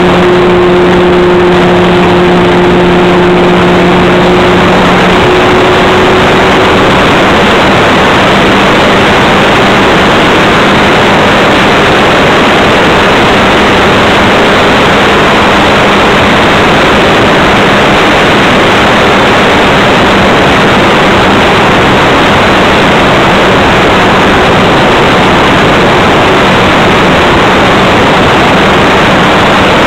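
E-flite Leader RC model airplane in flight, heard from its own onboard camera: a steady motor and propeller hum buried under loud wind rush over the microphone. The hum steps slightly higher and fainter about five seconds in.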